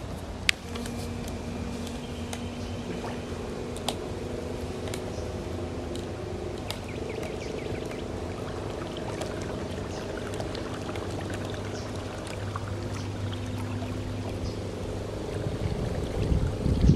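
Electric trolling motor on a kayak running with a steady hum, with water noise from the propeller wash and hull. There are a couple of sharp clicks in the first few seconds, and the water noise grows louder near the end.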